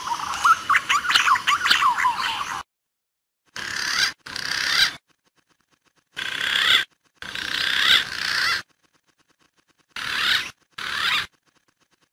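Recorded punai (green pigeon) calls played as a bird lure: a dense run of quick whistled chirps and warbles for the first couple of seconds, then six short bursts of chattering calls, each broken off by a sudden cut to silence.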